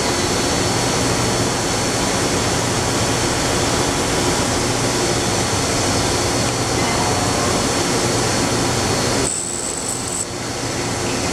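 EDM DrillMate 430I CNC EDM hole drill running with a steady hiss and hum, which drops off abruptly about nine seconds in.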